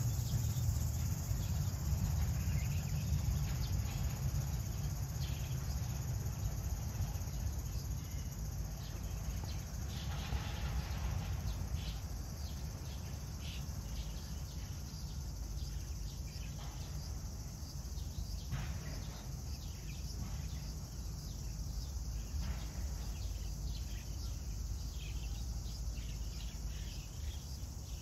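Outdoor ambience: steady high-pitched buzzing of insects over a steady low rumble, with a few faint, short chirps scattered through.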